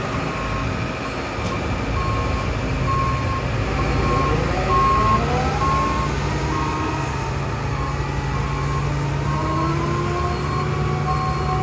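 Hitachi ZX170W-6 wheeled excavator driving off, its diesel engine running steadily under load with a rising whine about four seconds in as it picks up speed. A travel alarm beeps steadily about twice a second.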